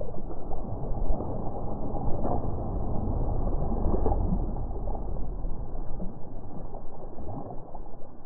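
Small waves washing and lapping onto a pebbly lake shore, with a steady low wind rumble on the microphone.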